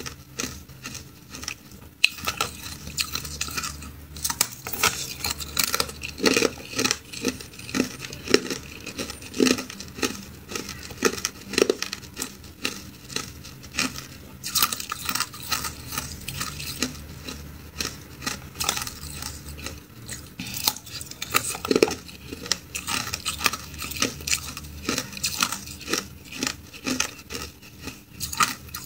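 Close-up crunching and chewing of hard ice, a dense, irregular run of sharp cracks and crunches, with pieces of ice clinking against the plate.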